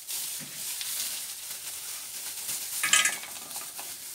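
Water at a rolling boil in a stainless steel pot on a gas stove: a steady bubbling hiss. A brief clatter about three seconds in as the bag of frozen pelmeni is brought over the pot.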